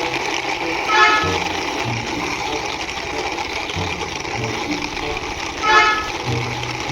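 Background music with a vehicle horn tooting briefly twice, about a second in and again near the end.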